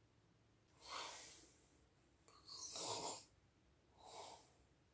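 A person breathing softly in sleep: three faint breaths about a second and a half apart.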